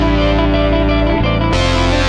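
Music with guitar, its chord changing about one and a half seconds in.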